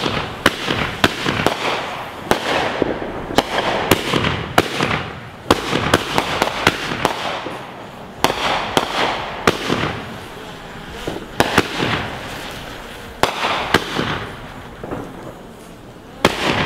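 Fireworks going off: a long, irregular run of sharp bangs and crackling pops with hiss between them, easing off briefly about eight seconds in and again near the end.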